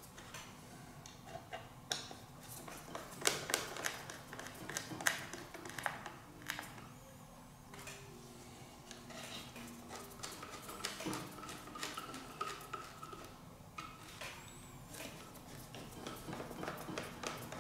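Scattered light clicks and knocks of wooden battens, plywood and hand tools being handled on a workbench.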